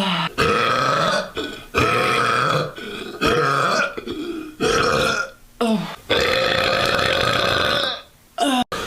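A woman burping, a rapid string of loud burps one after another, the longest drawn out for about two seconds near the end.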